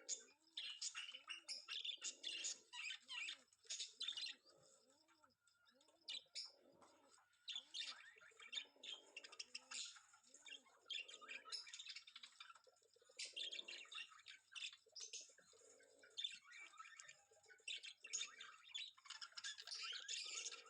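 A flock of small birds chirping busily, many calls overlapping, with low, repeated cooing calls of pigeons underneath, most regular in the first half.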